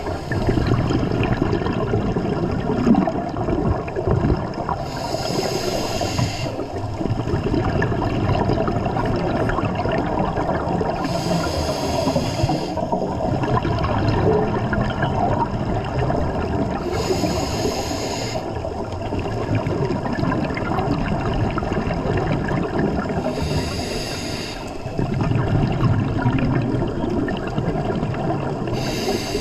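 Scuba diver breathing through a regulator underwater: a hiss of breath about every six seconds over a steady rumble of water and bubbles.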